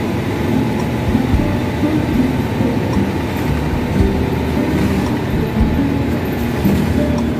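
Steady engine and road rumble heard from inside a moving city bus, with music playing along in the background.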